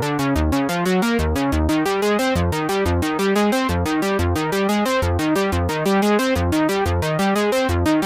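u-he Tyrell N6 software synthesizer playing its 'Little Grey One NF' preset: a fast, even run of short notes, about eight a second, over lower bass notes.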